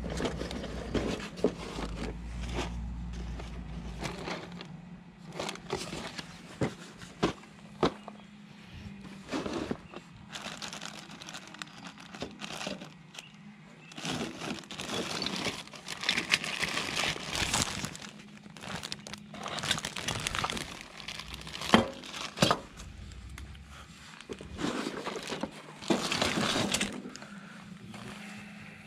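Items being handled on a table: cardboard boxes and plastic bags crinkling and rustling, with irregular taps and knocks throughout.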